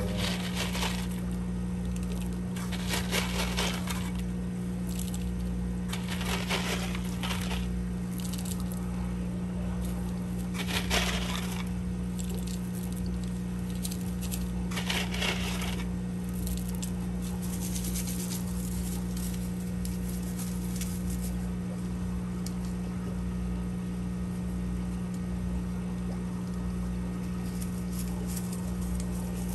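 Small rocks of filter media, zeolite and ceramic matrix, rattling and clattering in short bursts as they are scooped into a media bag, over a steady low hum.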